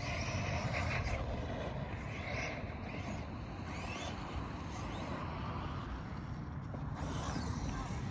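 Radio-controlled trucks running on a dirt track: a faint electric-motor whine rising and falling over a steady rumble of outdoor noise.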